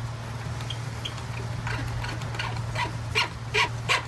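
Repeated short squeaks, about two or three a second, begin a little under two seconds in as a fairing bolt is screwed in. They sound like cartoon squeaky footsteps. A steady low hum runs underneath.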